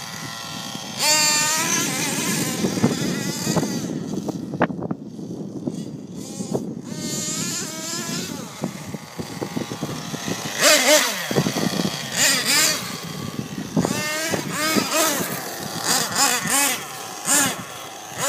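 Nitro engine of a Thunder Tiger MTA Sledgehammer S50 RC monster truck, revving up and down in repeated bursts of throttle as it is driven, with quieter stretches between.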